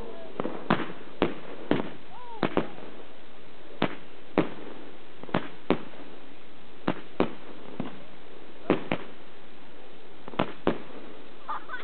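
Fireworks bursting overhead: about eighteen sharp bangs at irregular intervals, over a steady background hiss.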